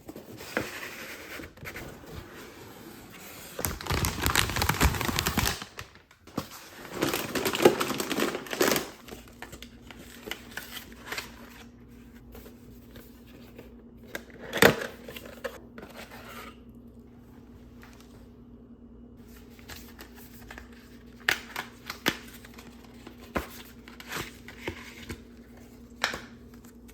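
Plastic and cardboard packaging crinkling and rustling as computer parts are unboxed, in two loud spells during the first nine seconds. After that comes a faint steady hum with scattered clicks and knocks.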